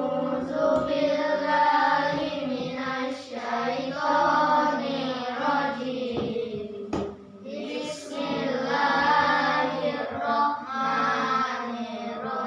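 A class of children reciting a prayer together in unison, in a sing-song chant, with a short pause about halfway through.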